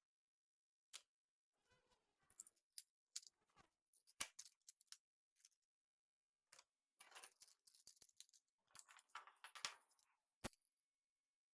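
Plastic magnetic building tiles being handled and snapped together: faint, scattered sharp clicks and short bursts of clattering, ending in a single sharp click.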